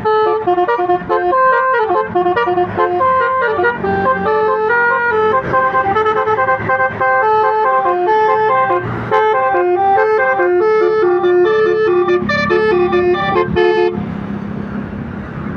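A melody of clear, pitched notes stepping up and down, which stops about fourteen seconds in, leaving steady street noise with a low hum of passing traffic.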